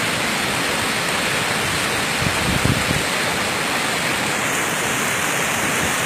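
Tall waterfall rushing steadily, its water falling onto rocks with a constant noise of spray and splashing.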